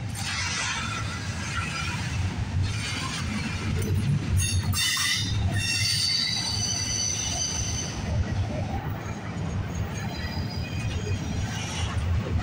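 Double-stack container cars of a freight train rolling past: a steady rumble and clatter of wheels on rail, with high-pitched wheel squeal at times, most clearly around the middle.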